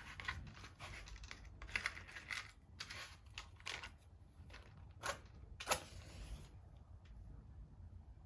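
Packaging being handled and opened: a run of short rustling and crinkling sounds, with two sharper, louder tearing-like sounds near the middle, then it goes quiet.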